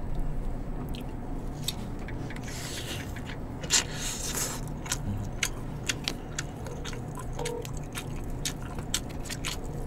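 Eating sounds close to the microphone: chewing and biting food, with many small clicks of spoons and chopsticks against dishes and containers, the sharpest a little before the middle.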